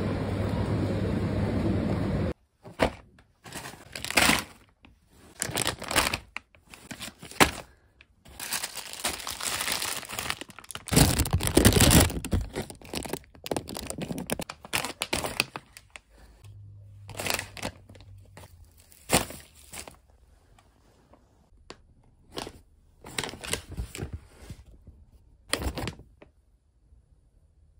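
Steady shop background noise cuts off about two seconds in. Then paper and plastic grocery packaging rustles and crinkles in irregular bursts as it is handled, with a few knocks.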